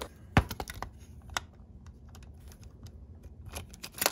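Scattered light clicks and taps from a plastic model locomotive being handled, lifted and set down. There is one sharper knock about half a second in and a cluster of clicks near the end.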